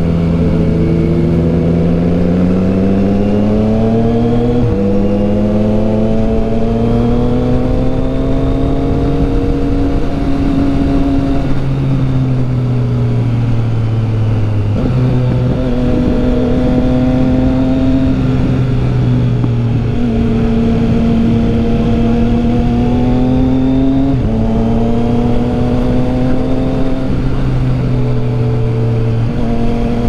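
Motorcycle engine heard from the rider's seat while riding along the road, its note climbing and then dropping in steps several times as the rider works the throttle and gears, over a steady rush of wind.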